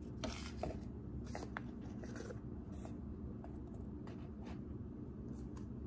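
Stiff cardstock oracle cards sliding out of a cardboard deck box and rubbing against each other in the hands: scattered soft scrapes and light taps over a steady low hum.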